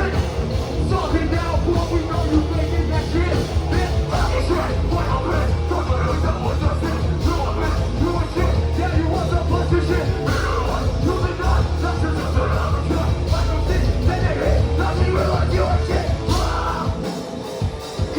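Hardcore punk band playing loud and fast: distorted guitars, heavy bass and pounding drums under shouted vocals. The music thins out and drops near the end.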